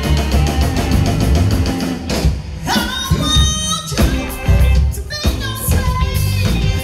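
Live electric blues band playing: electric guitar, bass guitar and drums. A woman's voice comes in singing about halfway through.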